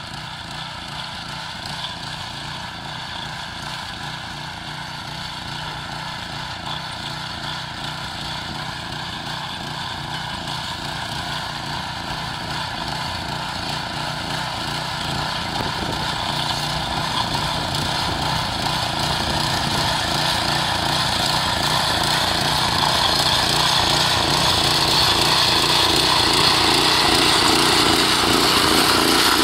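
Chore Master tiller's small gas engine running steadily while its tines churn the soil, growing louder as the machine comes closer.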